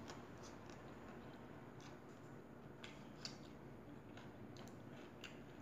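Faint eating sounds from a person chewing and picking at food by hand: scattered soft clicks a second or so apart over a low steady room hum.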